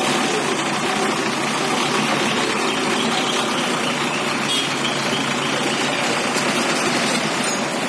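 ACE backhoe loader's diesel engine running steadily.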